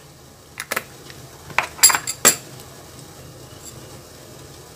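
A spoon clinking lightly against kitchenware, about six short clinks in the first two and a half seconds.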